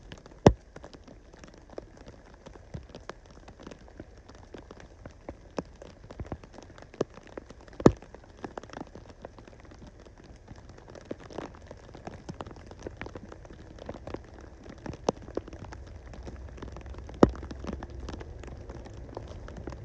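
Scattered raindrops tapping at irregular intervals, a few louder single drops standing out, over a low steady background hiss.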